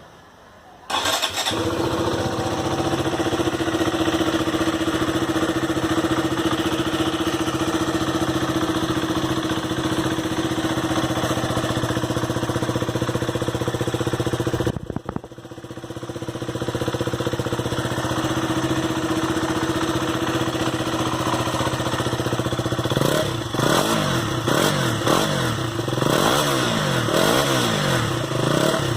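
KTM Duke 200's single-cylinder engine through its stock exhaust, starting about a second in and then idling steadily. About halfway the sound drops out briefly and comes back. In the last few seconds the engine is revved in a series of quick throttle blips, its pitch rising and falling.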